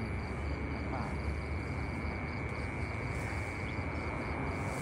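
Night insects chirping: a steady high trill with a faster, evenly pulsing chirp above it, over a low steady rumble.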